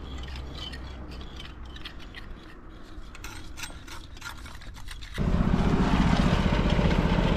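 Hand tools scraping and rubbing over fresh lime-mortar joints in a stone wall, in many short, scratchy strokes. About five seconds in, a louder, steady machine engine sound with a fast pulse takes over.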